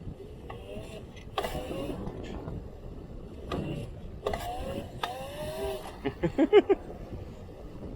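Electric dirt bike motor whining in several short bursts, its pitch gliding up and down with the throttle. Near the end comes a quick run of short pulsed tones, the loudest sound.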